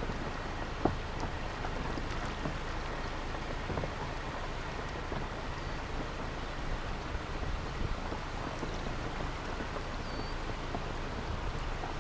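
Steady wet hiss with scattered light ticks of drops.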